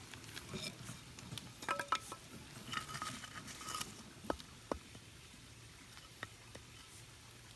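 Light clinks and rattles of metal cookware being handled, some with a brief ringing tone, followed by a few faint separate taps in the second half.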